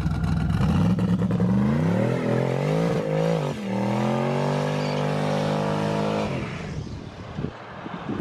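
Twin-turbo V8 Chevy S10 accelerating hard at full throttle: the engine climbs in pitch, shifts gear with a brief break about three and a half seconds in, pulls again, then the throttle is lifted suddenly about six seconds in.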